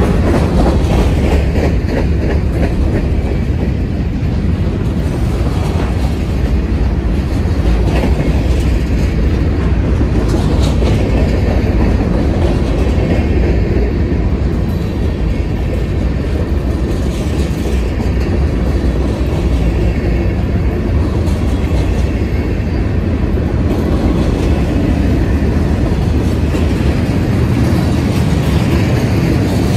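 Freight cars of a manifest train rolling past close by: a steady, heavy rumble of steel wheels on rail, with scattered sharp clacks as the wheels cross rail joints.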